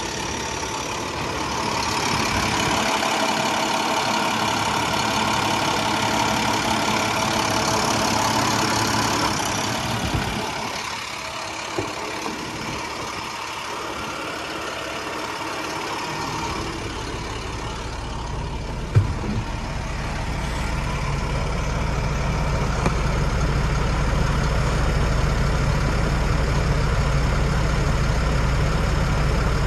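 Truck engine idling steadily. A little past the middle the sound turns much deeper and lower-pitched and stays that way, and a single sharp knock comes soon after.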